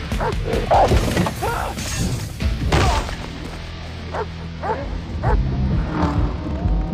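A dog barking and snarling in quick bursts, with knocks and a heavy thump about three seconds in. Then a few single sharp barks about half a second apart, over a low, steady music drone.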